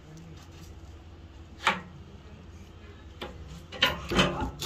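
Sharp knocks and clicks of frame moulding being set and clamped on a metal corner-pinning machine: a single knock, another, then a quick cluster near the end, over a steady low hum.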